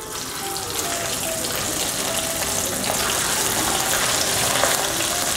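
Cornstarch-coated pork slices sizzling as they are dropped one by one into hot oil in a wok for deep frying, a steady crackling hiss that grows a little louder as more pieces go in.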